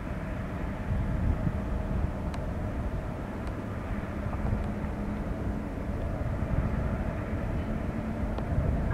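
Indian Railways WAP-class electric locomotive hauling a passenger train: a steady low rumble, with a low hum that comes in about four seconds in.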